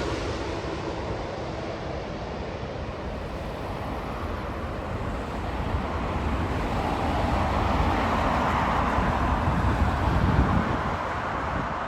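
Jet airliner engine noise, fading at first, then swelling again and easing off near the end, over a low rumble of wind on the microphone.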